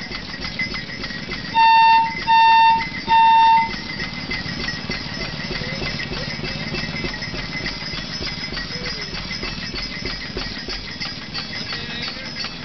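Three short horn blasts, each about half a second long at one steady pitch, over the steady rapid clatter of an antique flywheel gas engine running.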